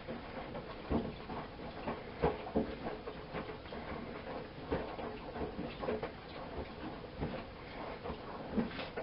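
Miele Softtronic W 204 front-loading washing machine washing: the drum turns with laundry and water tumbling inside, giving irregular soft knocks and splashes over a faint steady tone.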